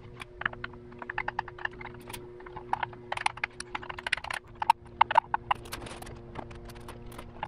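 Quick, irregular light metallic clicks and taps as an oil dipstick tube is twisted and worked into its bore in a Subaru EJ25 engine block, its new oiled O-rings making it a tight fit.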